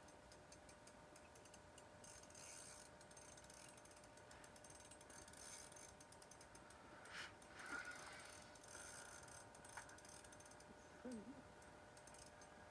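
Faint, rapid clicking of a fishing reel being cranked as a fish is played through the ice, coming in patches.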